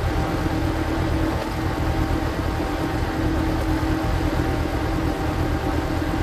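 Power tiller's single-cylinder diesel engine running steadily, driving a screw log splitter, with a constant drone and steady hum. The audio is sped up to double speed.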